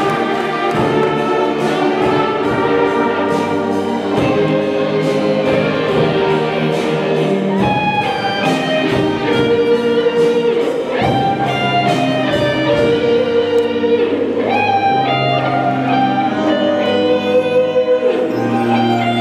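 Student concert band playing: flutes, clarinets, saxophones, trumpets, horns and tuba in full chords, with steady drum beats through the first half.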